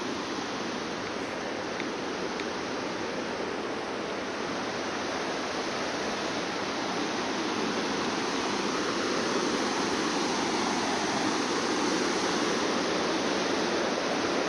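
Fast mountain river rushing over rocks in white-water rapids: a steady, even rush of water that grows slightly louder in the second half.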